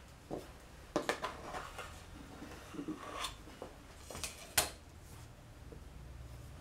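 Kitchen knife scraping and tapping against the rim of a metal pie plate as dough is cut around it: a scatter of light clicks and knocks, the sharpest about four and a half seconds in.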